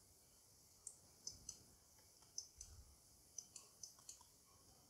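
Faint computer mouse clicks, about a dozen short, light clicks scattered irregularly over a few seconds.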